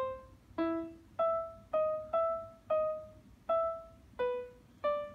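Touch-sensitive Bluetooth flower pot speaker playing single piano notes as the leaves of the plant in it are touched: nine separate notes of changing pitch, about one every half second, each dying away before the next.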